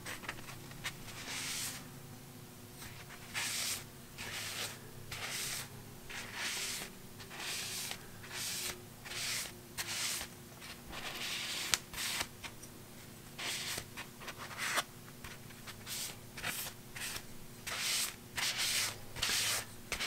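Blue paper shop towel rubbing mineral-oil-and-beeswax butcher block conditioner into small sanded walnut blocks: a series of short, irregular wiping strokes, about one or two a second.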